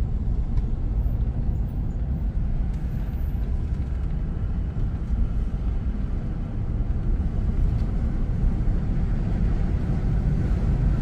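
Car driving along a paved road, heard from inside the cabin: steady low engine and tyre noise.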